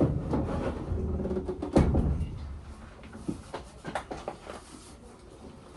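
A heavy wall-mounted solar inverter being shifted on its metal wall bracket, scraping and bumping against the plywood backboard. One loud knock comes just before two seconds in, then a few small clicks and knocks.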